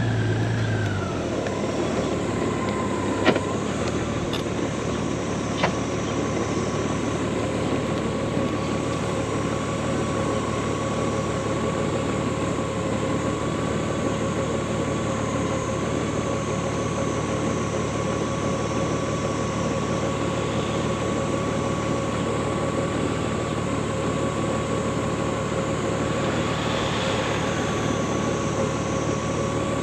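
Honda Gold Wing motorcycle engine winding down in the first second, then idling steadily with the bike at a standstill. A steady high whine rides over the even running noise, and there are two short clicks in the first six seconds.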